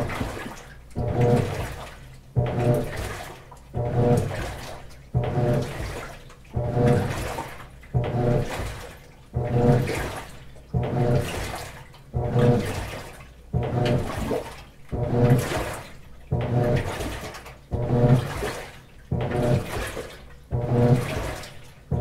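GE Spacemaker WSLS1100 washing machine agitating a load of wash: with each stroke the motor hums up and the water swishes, then dies away, a stroke about every one and a half seconds in a steady rhythm.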